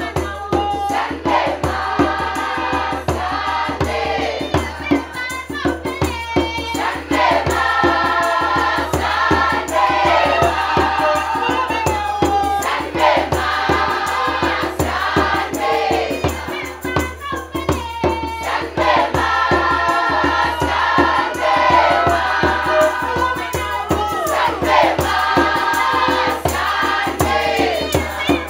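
A mixed choir of young men and women singing together in harmony, over a steady, fast rhythmic percussion beat.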